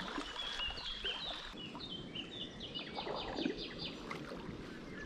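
A songbird singing a run of short, quickly repeated high notes, over the faint wash and dips of kayak paddles in river water.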